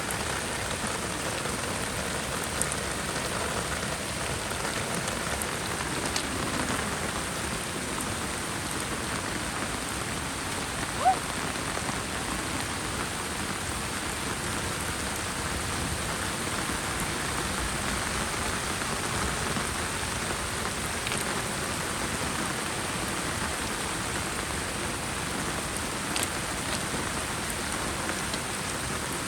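Heavy rain falling steadily, with a few scattered drips and one brief sharp blip about halfway through.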